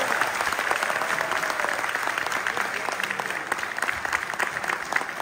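Concert audience applauding: dense hand clapping that eases off slowly.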